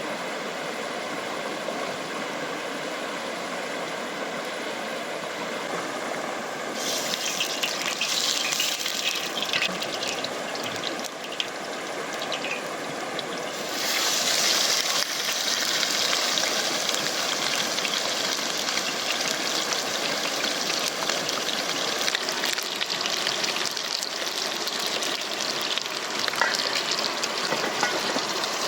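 Fast river water rushing steadily. A brighter hiss joins abruptly about seven seconds in, and again more strongly about fourteen seconds in.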